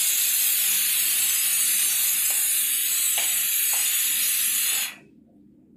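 A loud, steady hiss, as of steam or gas escaping, that cuts off suddenly about five seconds in. A few faint clinks sound under it.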